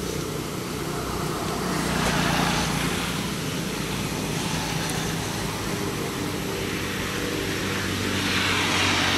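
A motor vehicle's engine running steadily, with a hiss that swells about two seconds in and again near the end.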